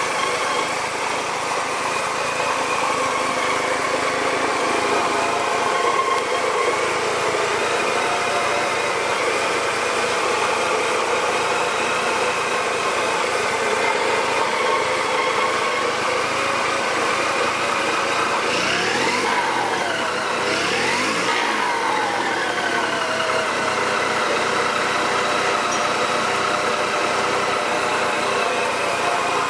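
Sachs KM48 single-rotor Wankel engine, newly rebuilt, running steadily on a test stand. About two-thirds of the way through it is revved up and back down twice in quick succession.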